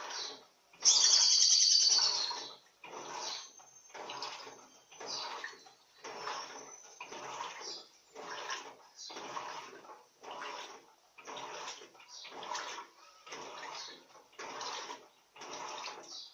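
Turbo Economia 15 kg LTD15 top-loading washing machine agitating a load of towels, water sloshing in a steady rhythm of roughly one swish a second. About a second in, a loud, high-pitched sound cuts in briefly over it.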